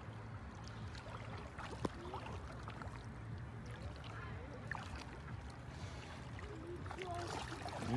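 Faint lapping and swirling of shallow sea water, over a low steady rumble, with a few small clicks.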